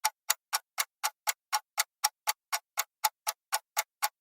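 Countdown timer sound effect: a clock ticking steadily, about four sharp ticks a second, while the quiz question waits for an answer.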